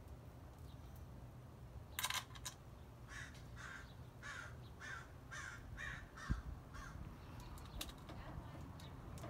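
A crow caws about eight times in an even series. Small metallic clicks come from handling the bolts and hardware of a two-piece brake rotor, with a sharper clatter about two seconds in and a dull knock a little after six seconds.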